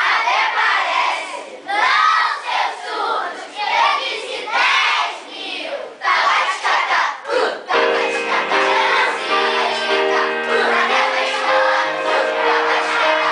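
Many children's voices in a noisy jumble for the first half, then a children's choir starts singing about two thirds of the way in, in steady held notes that change pitch in steps.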